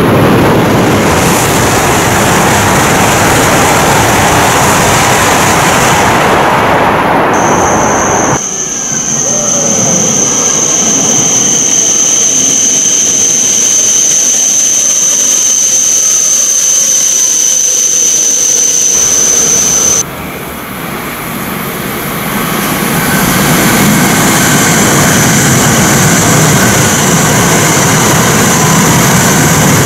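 Shinkansen trains running through stations at high speed, a loud, dense rush of air and wheel noise. From about 8 to 20 seconds in it is quieter, as a train runs slowly along the platform, with a steady high-pitched whine. After that an E5-series train passes at speed and the rushing builds again.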